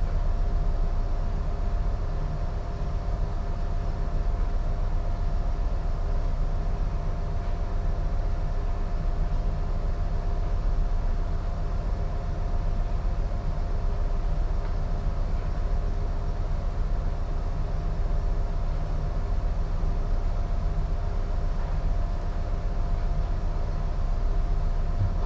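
Steady low rumble with a faint constant hum aboard a container ship, unbroken and even in level.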